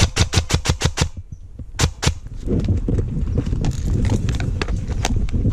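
Airsoft rifle firing a quick burst of about eight shots in the first second, then two more shots a moment later, followed by a low rustle of movement.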